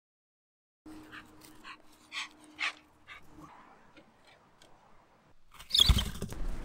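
A run of short, high animal calls, several a second, for about two seconds starting a second in. A louder, noisy sound starts near the end.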